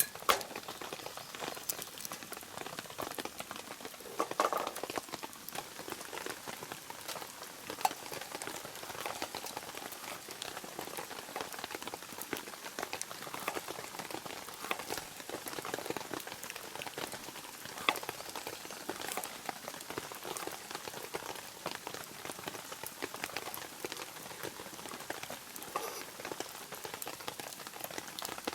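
Rain pattering steadily, with a few sharper drops tapping now and then.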